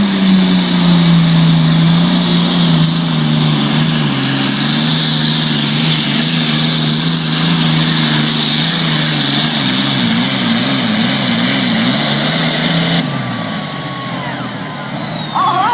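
Turbocharged diesel engine of a Super Farm pulling tractor running flat out under load during a pull, its pitch slowly sinking and wavering. About thirteen seconds in the engine cuts off abruptly, leaving a high whistle that glides steadily down as the turbochargers spool down.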